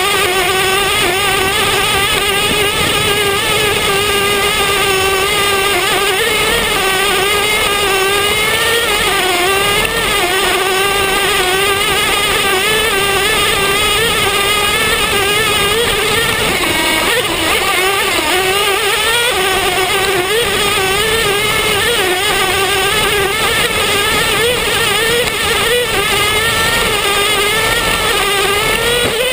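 Traxxas T-Maxx nitro RC truck's small two-stroke glow engine running hard at high revs, heard close up from on board, its buzzing pitch wavering constantly with the throttle as the truck drives over rough grass.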